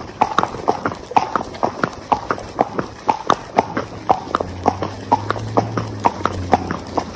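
A horse's hooves clip-clopping on asphalt at a walk, in an even rhythm of about four hoofbeats a second.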